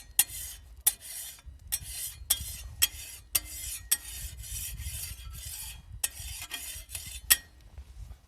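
A metal cooking utensil scraping in short repeated strokes, roughly two a second, each beginning with a sharp click. The strokes stop near the end.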